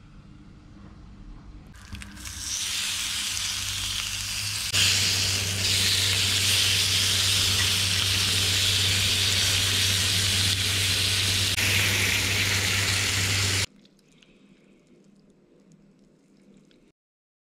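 Water running from a tap into a kitchen sink, then a tuna steak sizzling in a hot cast-iron grill pan, a steady hiss with a low hum beneath. The sizzling cuts off suddenly a few seconds before the end.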